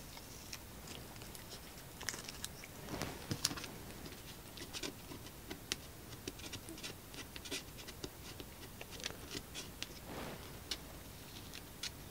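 Blue masking tape being peeled slowly off watercolour paper: faint scattered crackles and ticks, with two longer soft rasps about three and ten seconds in.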